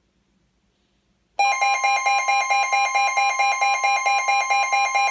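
Emergency alert tone on NOAA Weather Radio, starting loud about a second and a half in: a steady tone under a rapid, evenly pulsing electronic beep, ahead of the next warning message.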